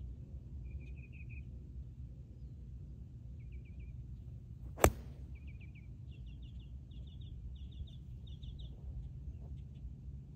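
A single sharp click of a pitching wedge striking a golf ball from the fairway, about five seconds in. A bird's short chirping trills repeat before and after it, over a low steady rumble of wind on the microphone.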